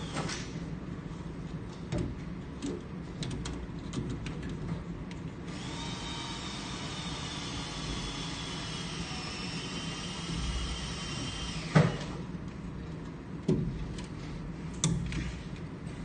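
Hand-wiring a control panel: wires and plastic wiring duct handled against the metal panel door, giving light clicks and rustles, then a sharp knock about twelve seconds in and two smaller knocks after it. A steady high whine of several tones sounds for about six seconds in the middle.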